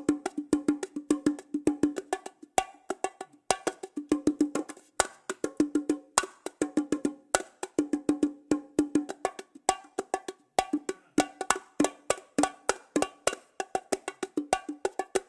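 Fisher-Price toy bongo drums playing a quick, rhythmic cartoon-style pattern of hollow, pitched drum hits, several strikes a second in rippling groups.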